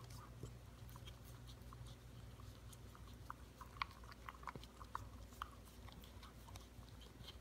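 Corgi puppy licking a yogurt cup clean: faint lapping with small tongue clicks, coming in a quicker run about halfway through.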